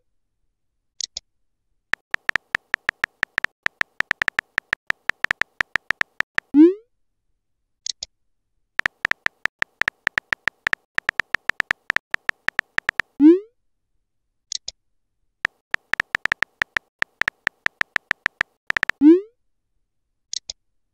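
Texting app sound effects: rapid synthetic key-tap clicks as a message is typed, each run ending in a short rising send sound followed by a brief high blip. This happens three times, about every six and a half seconds.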